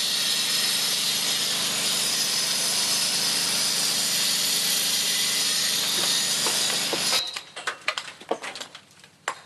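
A handheld power tool working a sandstone rock face gives a steady, dense hissing noise. It cuts off suddenly about seven seconds in, and scattered light clicks and taps follow.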